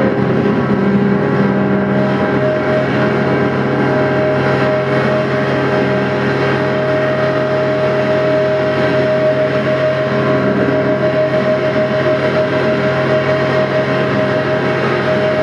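Amplified live music of steady sustained tones: a high held note over a low hum and a dense wash of noise, loud and unchanging throughout.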